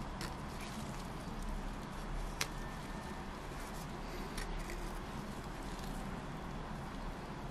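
Wooden popsicle stick pressing silicone sealant into a 3D-printed plastic mould: faint squishing and a few light clicks over a steady low hum.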